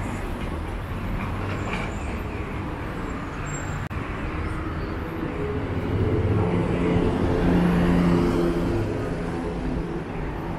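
Road traffic on a city street running steadily. About six seconds in, a vehicle's engine hum grows louder for a few seconds, then eases off.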